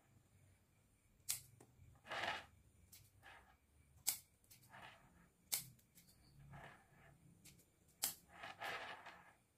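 Scissors snipping small twigs off a hokiyanti bonsai while pruning it. There are four sharp snips, a second or more apart, with fainter noises between them.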